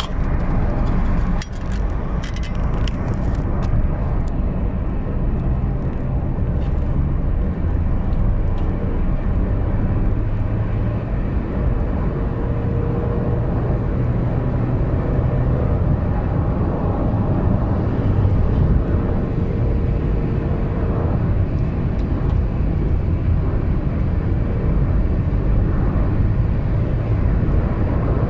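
In-cabin sound of a 2015 Honda Mobilio RS at high speed: a steady rumble of road and wind noise with the engine running hard, the car held at about 125 km/h, where its low speed limiter stops it. A few knocks and clicks in the first few seconds as the phone camera is handled.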